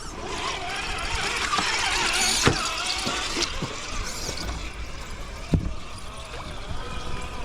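RC rock crawler working through a creek: water trickling and splashing over the stones, with the small electric motor whining and changing pitch as the throttle varies. Two sharp knocks, one about two and a half seconds in and one a little past five seconds.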